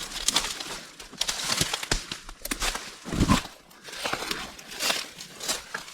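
Footsteps crunching and rustling through dry brush and leaves, an irregular series of crackles with a heavier step a little past three seconds.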